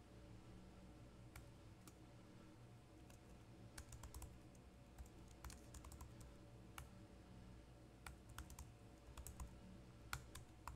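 Faint typing on a computer keyboard: short keystroke clicks in irregular clusters over a low steady hum.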